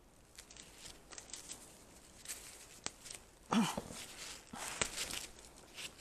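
Leaves and vine stems of trellised Korean squash rustling, with small snaps and tearing sounds, as gloved hands work through the plants. A brief louder pitched squeak comes about three and a half seconds in.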